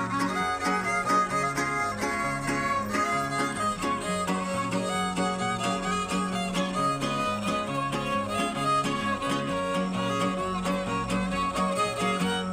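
Huastec trio playing an instrumental passage of a son huasteco: violin melody over the steady strumming of jarana huasteca and huapanguera, the huapanguera picking out a bass line.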